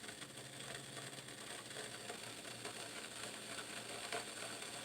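Faint hiss and bubbling of water heating in a stainless steel whistling tea kettle on the stove, not yet hot enough to whistle.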